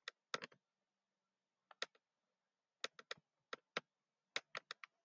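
Computer mouse and keyboard clicks: about a dozen short, sharp clicks at an irregular pace, some in quick pairs, with a pause of about a second near the start and closer clicks toward the end.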